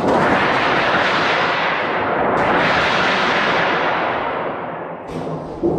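Thunder sheet, a large hanging sheet of thin metal, shaken to give a long, thunder-like crash. The crash surges again about two and a half seconds in and dies away near the end.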